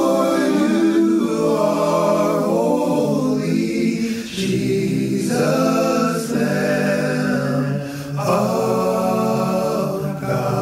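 A vocal group singing a worship song a cappella in layered harmony, holding long notes. Phrases break off briefly about four and eight seconds in.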